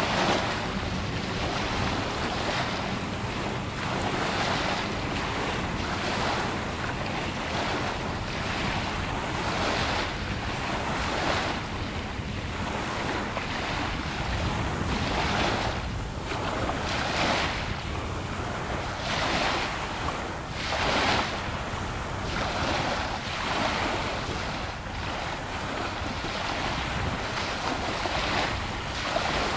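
Small waves washing in at the water's edge, swelling every second or two, with wind buffeting the microphone.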